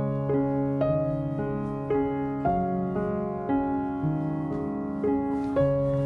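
Background piano music: a steady, gentle pattern of piano notes struck about twice a second over held chords.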